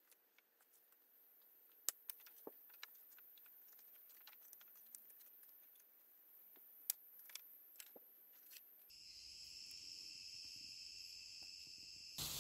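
Faint sharp clacks and taps of dry wooden sticks knocking together as they are fitted into a stick A-frame shelter. About three-quarters of the way in, a steady high insect buzz takes over.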